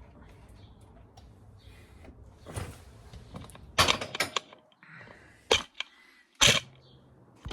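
Hand tools and small metal parts being handled during motorcycle ignition-switch work: a handful of sharp separate clicks and knocks, the loudest in the second half.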